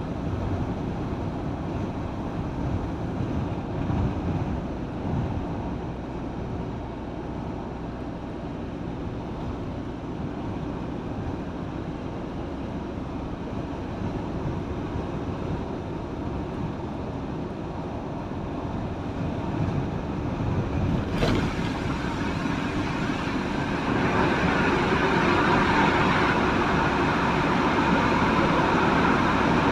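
Steady road and wind noise of a vehicle driving along a road: a continuous rumble with no distinct tones. A sharp click comes about two-thirds of the way through, and soon after the noise grows louder and brighter.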